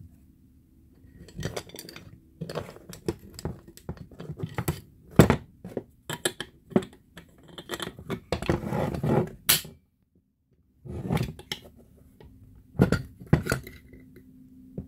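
Steel and wooden parts of an AK-pattern rifle kit being handled and set down on a wooden workbench: irregular clicks, clacks and short scrapes, with a sharp metallic click just before ten seconds in.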